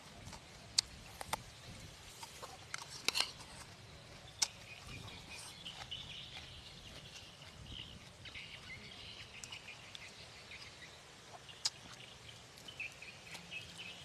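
Birds chirping in the background, in a run from about five seconds in and again near the end, over a faint open-air hiss, with scattered sharp crunches and clicks from eating crunchy food.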